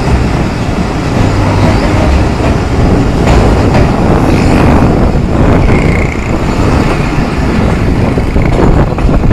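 Passenger train running at speed, heard from an open coach doorway: a loud, steady rumble of the coaches' wheels on the rails.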